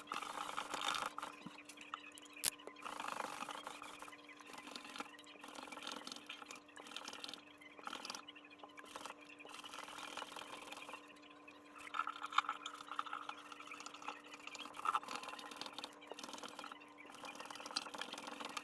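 A cloth or applicator rubbing conditioner into an acoustic guitar's fretboard, in irregular scratchy, squeaky strokes with a few small ticks. A faint steady hum sits underneath.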